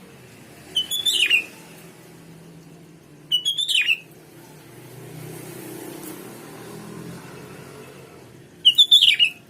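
Sooty-headed bulbul calling: three short bursts of quick chirping notes, each ending on a falling note, about a second in, at three and a half seconds, and near the end.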